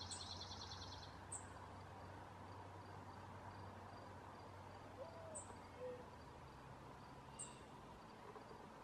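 Near-silent field ambience: a brief, rapid high trill right at the start, then a few faint ticks spaced a second or two apart over a low steady hiss.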